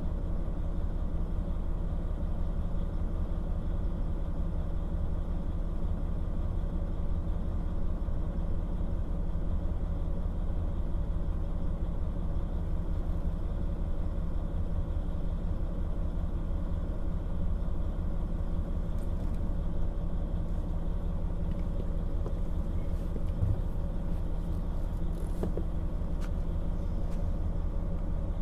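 Diesel engine of a KiHa 40 1700-series railcar, heard from inside the car, running at a steady, even hum with no change in pitch. There are a few faint clicks in the second half.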